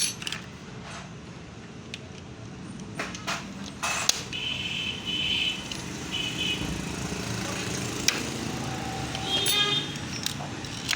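Metal hand tools and motorcycle parts clinking and knocking, with a few short high metallic squeaks, over a steady low hum.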